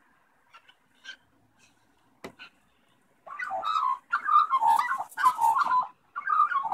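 A young Australian magpie calling close by: a run of loud, wavering, raspy calls in three or four stretches from about halfway through, after a single sharp tap.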